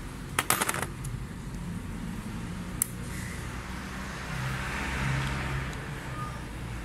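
Metal parts of a dismantled diesel injection pump clinking as they are handled: a quick cluster of sharp clicks about half a second in and a single click near three seconds. A low steady hum runs underneath.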